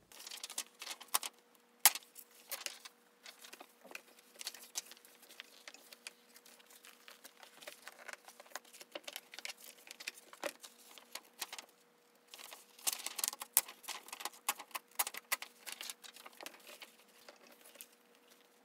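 Paper and plastic rustling and crinkling as magazine pages are turned and handled on a desk, with scattered sharp clicks and taps. There is a faint steady hum underneath.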